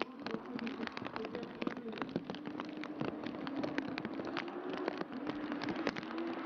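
Heavy rain, with raindrops hitting close to the microphone as many sharp irregular ticks over a steady hiss. Under it, a faint engine tone from cars accelerating down a wet drag strip rises slowly in pitch in the second half.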